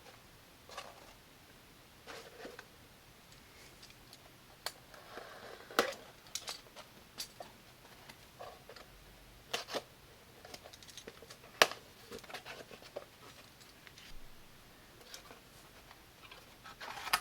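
Scattered small clicks and light handling noises in a quiet room, the sharpest click near the middle.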